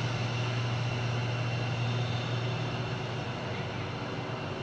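Steady low drone over the stage sound system, an even hum with a hiss above it, played as part of a dance performance's soundtrack.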